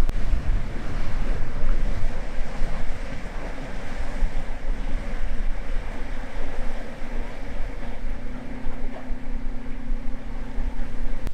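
Wind buffeting the microphone over breaking surf and choppy water, with a boat's outboard motor running under it; a steady engine drone comes through more clearly from about halfway on.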